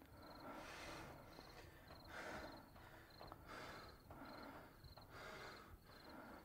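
A man breathing heavily, slow audible breaths about every second and a half, over crickets chirping steadily.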